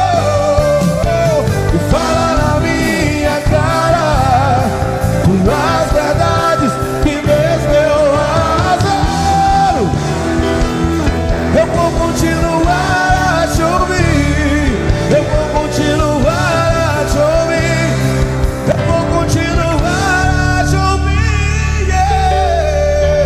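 Live worship band playing, with a male lead singer singing over it. No words come through clearly.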